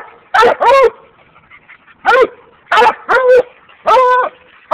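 Redtick coonhounds barking on a raccoon: about six loud, short pitched barks, several in quick pairs, with brief pauses between.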